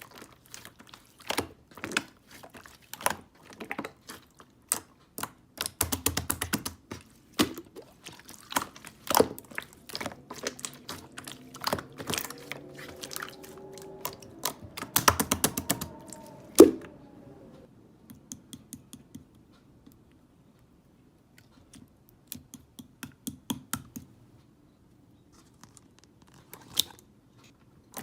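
Irregular series of sharp clicks and taps, dense in the first half and sparser later, with one especially loud click at about two-thirds of the way through. Over the middle a pitched sound glides up and down for a few seconds.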